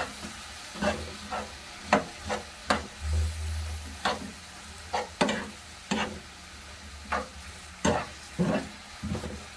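A metal spoon stirring and scraping shishito peppers and dried anchovies around a frying pan, in uneven strokes about one or two a second, over a steady sizzle of frying oil.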